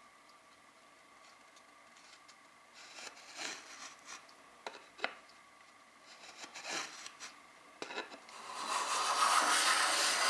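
Hand tool worked along the edge of a wooden board to scribe a line: short scratchy strokes and a few small knocks, then a longer, louder, steady scraping stroke for the last two seconds.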